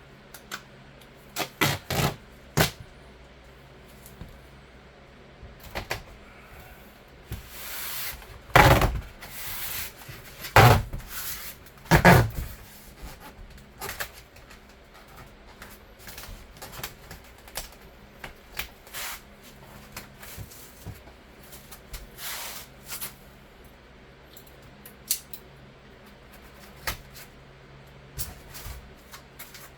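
Black Gorilla Tape being pulled off the roll and pressed over gaps between foam insulation pieces, with scattered knocks and rustles of handling. The longest and loudest noisy pulls come about 8 to 12 seconds in.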